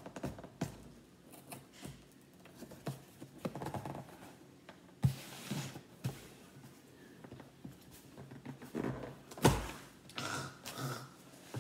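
Cardboard shipping box being opened by hand: scratching, scraping and tearing at the taped flaps, with knocks as the box is handled. There is a sharp knock about five seconds in and a louder thump later on.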